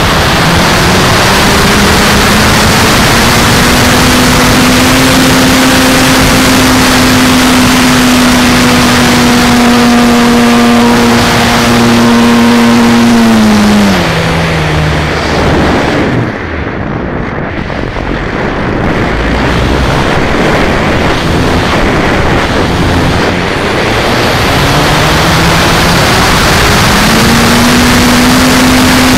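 Onboard sound of a Sebart PC-21 RC model airplane in flight: a steady propeller drone under heavy wind rush on the mic. The pitch climbs in the first few seconds and holds, then falls and drops away about halfway, leaving mostly wind. It climbs back to full pitch near the end.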